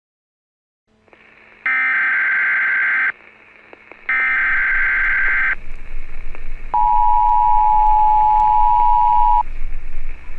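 Emergency Alert System broadcast tones: two harsh, screeching data bursts, each about a second and a half long, then the steady two-note attention tone held for about three seconds. It is the signal that an emergency bulletin is about to be read.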